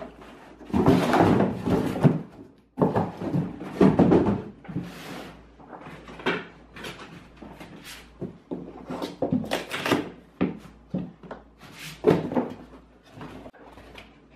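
Cardboard boxes and foam packing being handled: a series of scrapes, rustles and knocks as a box is pulled out of a cardboard shipping carton, then opened and its foam insert lifted out. The longest, loudest scrapes come in the first four seconds or so, followed by shorter knocks and rustles.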